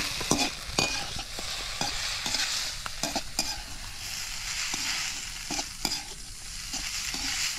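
Food sizzling as it fries in a pan, with a steady hiss and frequent clicks and scrapes from a utensil stirring it against the pan.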